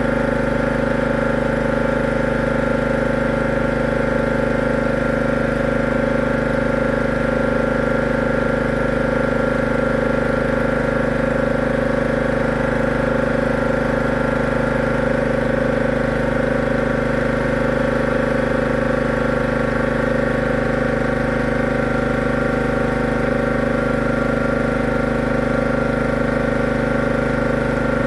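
A motor-driven machine running steadily, its hum holding one pitch without starting, stopping or changing speed.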